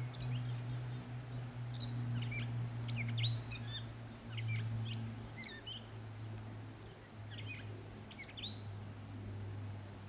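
Gray catbird singing a jumbled run of short, varied high notes for about five seconds, pausing, then adding a few more notes near the end. A steady low hum runs underneath.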